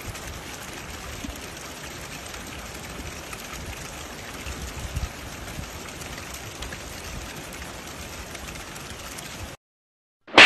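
Steady hiss and patter of falling sleet, wet snow mixed with rain. It cuts off about a second before the end, and a sudden loud sharp sound hits right at the end.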